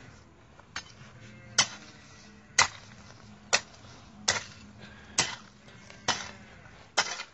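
Hand hoe with a wooden handle chopping into soil: eight sharp strikes at a steady pace of about one a second, digging a small hole at a tree's root area.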